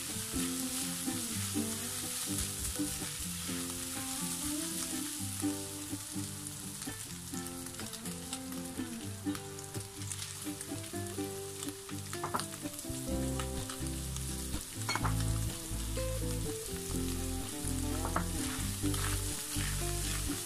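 Minced beef sizzling in a frying pan as it is stirred with a plastic spatula, with a few clicks and scrapes; about ten seconds in, cut green beans are tipped in and the frying goes on as they are mixed through. Soft background music plays underneath.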